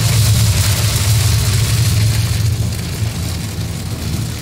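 Car driving on a wet highway in rain, heard from inside the cabin: a steady low drone from engine and road under a continuous hiss of tyres on wet pavement and rain. It eases slightly in the second half.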